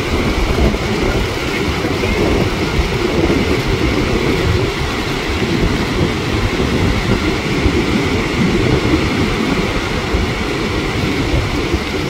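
Strong wind buffeting the microphone, a loud steady rumble that flickers without pause, with ocean surf breaking behind it.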